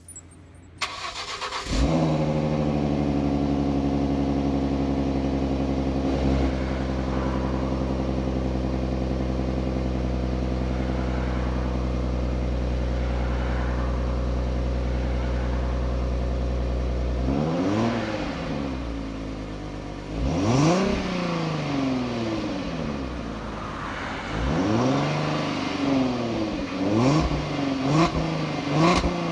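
A car engine starts, idles steadily, then from about two-thirds of the way through is revved again and again, its pitch rising and falling with each blip of the throttle.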